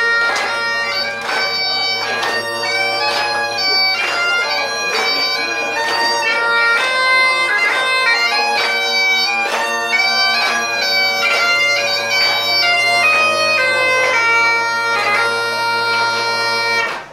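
Great Highland bagpipes playing a tune: a steady drone underneath, the chanter melody stepping between notes and broken by quick grace notes. The pipes cut off abruptly near the end.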